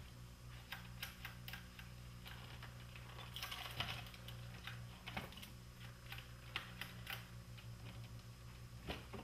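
Faint, irregular clicks and light rattles of a Technics RS-M275 cassette deck's tape transport and cassette-door assembly being handled by hand, with a denser run of clicks about four seconds in.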